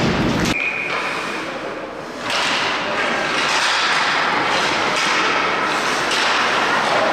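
Ice hockey arena noise: a low rumble cuts off about half a second in, a brief steady high tone follows, then a steady wash of rink and crowd noise with scattered knocks.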